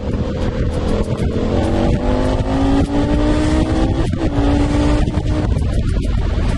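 KTM 1290 Super Adventure's V-twin engine pulling hard under acceleration to overtake, its pitch rising steadily for a couple of seconds with a brief break about four seconds in, over a constant rush of wind.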